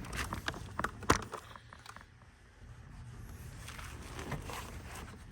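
Handling noise: a few clicks and knocks in the first second or so, the sharpest about a second in, then faint rustling and shuffling.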